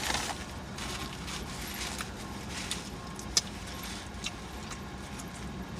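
Chewing a bagel sandwich with mouth smacking: scattered wet clicks, one louder a little over three seconds in, over a low steady hum.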